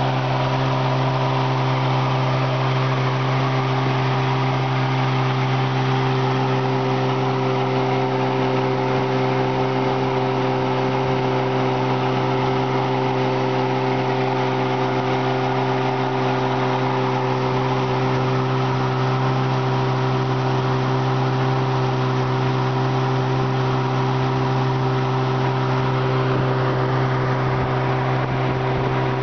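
Outboard motor on a pontoon boat running steadily at cruising speed, holding one even pitch throughout.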